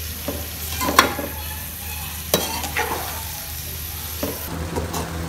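Metal slotted spoon scraping and clinking against an aluminium pot while stirring sliced onions and garlic lightly frying in oil, with a soft sizzle. A handful of sharp scrapes, the loudest about a second in.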